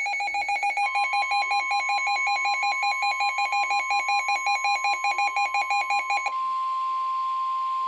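Weather radio alert: the receiver's alarm beeps in a rapid two-tone warble, about six or seven alternations a second. About a second in, the steady NOAA Weather Radio 1050 Hz warning alarm tone joins it, announcing a severe thunderstorm warning. The warble cuts off about six seconds in and the single steady tone goes on alone.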